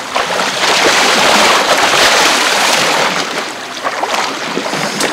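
Steady rushing noise of wind and sea water around a small fishing boat, easing slightly about three and a half seconds in.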